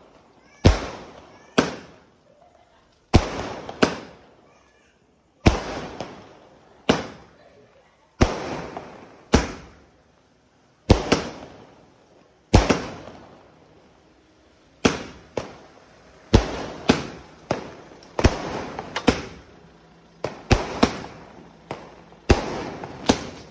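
120-shot aerial firework cake firing: about twenty sharp bangs as shells burst overhead, each fading off quickly. The bangs come about one every one to one and a half seconds at first, then faster, about two a second, over the last third.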